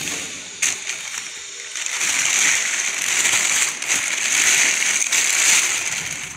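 Thin plastic bag crinkling and rustling continuously as hands work a small exhaust fan out of it.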